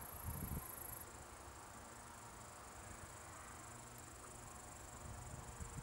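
Insects in the grass chirring steadily, a thin high buzz; the higher of two buzzes stops about a second in while the lower one runs on. Light wind rumble on the microphone in the first half second.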